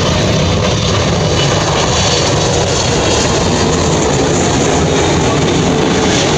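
Airliner engines running loudly: a steady, even rush of noise, with a faint whine-like tone coming in near the end.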